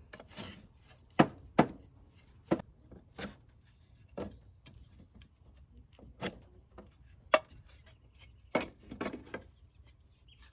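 Wooden top bars being set into a wooden top bar beehive: a series of about eight sharp wooden knocks and clacks, irregularly spaced, with faint rubbing between them.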